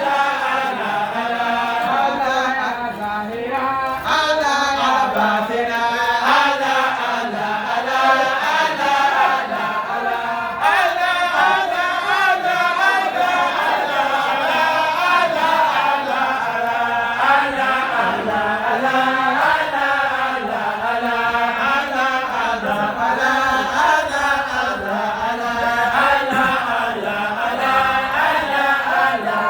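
Many voices chanting together in a continuous, unbroken Islamic praise chant (dhikr).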